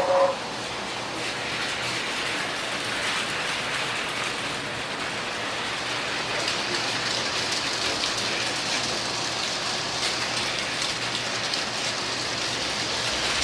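Model train running on its layout track: a steady rushing hiss with faint clicking, a little louder and brighter from about halfway through. The end of a locomotive whistle cuts off right at the start.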